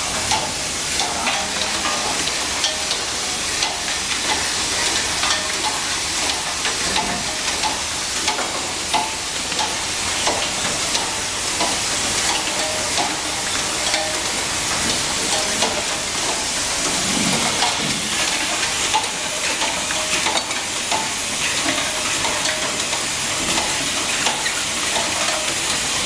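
Industrial egg breaking and separating machine running: a steady, dense clatter of many small clicks from its metal cracking arms and cups, over a constant hiss.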